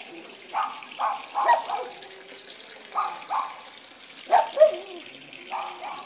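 A dog barking in short runs of two or three barks, over a faint steady trickle of water.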